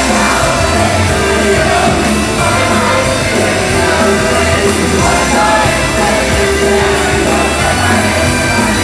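Idol-pop song played loud over a hall's PA during a live stage performance, with a steady beat and a girls' group singing.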